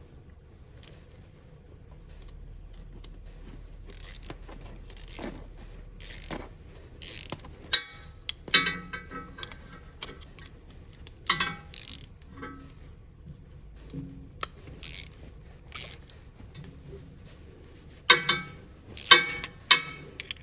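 Metal hand tools working on a tractor battery cable terminal while it is tightened down: irregular clicks and clinks, some with a short metallic ring, coming in bunches with the sharpest near the middle and near the end.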